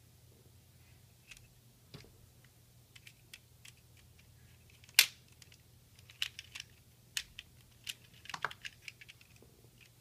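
Small plastic clicks and taps from handling a car radio's black plastic faceplate and a small screwdriver, scattered and irregular, with one louder knock about five seconds in and a quick run of clicks near the end. A faint steady low hum lies underneath.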